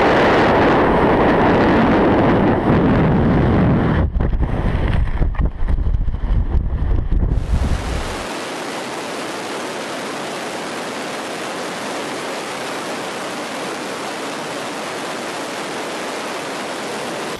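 Wind rushing over the microphone of a wingsuit flyer's helmet camera in fast flight. It is loud and full at first, buffets unevenly from about four seconds in, then settles into a steadier, thinner hiss about eight seconds in.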